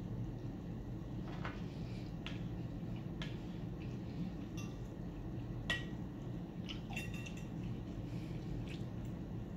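A person eating noodles and fish: wet chewing and mouth smacks with scattered small clicks, and one sharper clink about six seconds in, over a steady low room hum.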